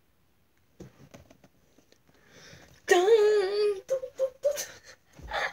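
A girl's voice sings a short wavering note about three seconds in, then a few brief notes after it; faint clicks and rustling come before it.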